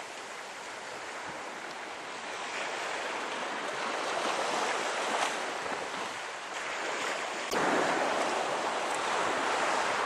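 Sea surf washing on a sandy beach, with light wind buffeting the microphone: an even rush of noise that swells and eases, growing suddenly louder about three-quarters of the way through.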